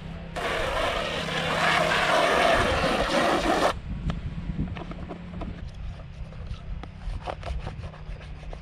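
Garden hose spray nozzle jetting water onto a black plastic tray, a loud hiss for about three seconds that cuts off abruptly. Light clicks and taps follow as the wet tray is handled.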